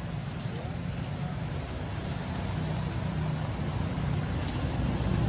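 Steady low rumble of a motor vehicle engine, growing louder toward the end.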